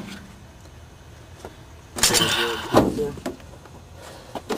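A rubber exhaust hanger, its hole lubricated with dish soap, squeaking loudly on the steel hanger rod for about a second, about two seconds in, as it is forced onto the rod by hand. Short clicks come near the start and end.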